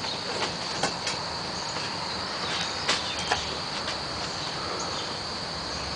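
Wooden Honiton lace bobbins giving scattered light clicks as they are handled, over a steady high-pitched whine.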